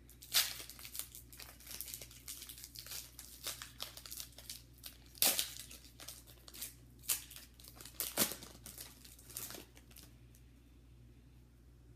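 Shiny foil wrapper of a football trading-card pack being torn open and crinkled in the hands: a run of sharp crackles and snaps that stops about ten seconds in.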